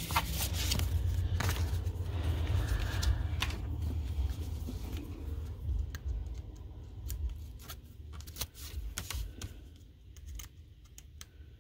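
Paper and cardstock being handled on a craft table: a panel is positioned and pressed down onto a card, with rustling and small taps and clicks for the first several seconds, then fainter, sparser handling.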